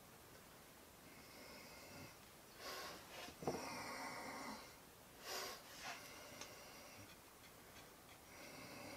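Faint breathing with soft handling noises as glue is brushed onto a wooden frame, and one sharp click about three and a half seconds in.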